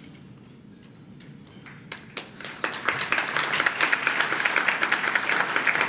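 Audience clapping: a few scattered claps, then swelling quickly into full, steady applause.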